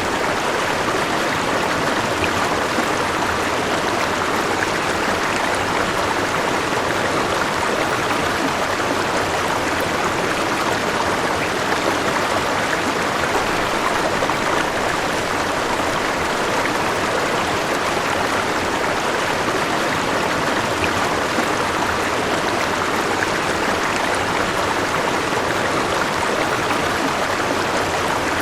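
River water flowing steadily over rocks, a constant rushing babble.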